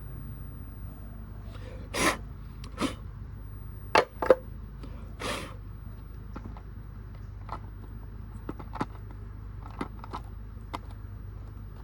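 Handling noise as a fuel pump assembly is fitted back into its basket: a few short scrapes and knocks in the first half, then light scattered clicks, over a steady low hum.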